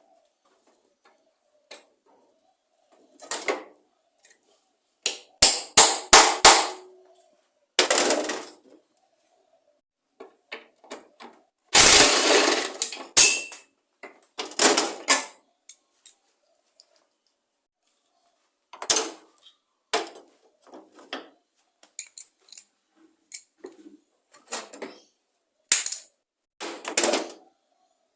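Hand tools working on a lawn mower engine: metal clinks, taps and short scrapes as a spanner and socket undo its bolts and nuts and loose parts are handled. The sounds come in scattered bursts with pauses between them, and the loudest is a longer scrape about twelve seconds in.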